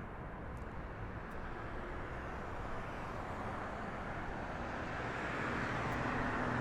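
Jet airliner engine noise, a steady rush that grows gradually louder.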